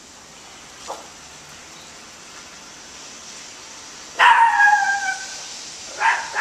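A dog barking: a faint short yip about a second in, one long drawn-out bark about four seconds in that falls slightly in pitch, and a short bark near the end.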